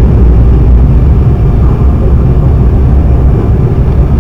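Loud, steady low rumble of an Embraer E195 airliner's jet engines and rushing air, heard from inside the cabin during the landing.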